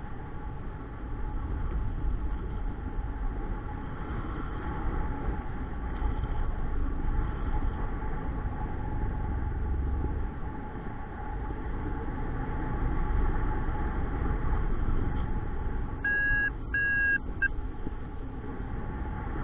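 Steady wind noise rushing over the microphone of a paraglider pilot's camera in flight. About sixteen seconds in, three short electronic beeps sound in quick succession, typical of a paragliding variometer signalling lift.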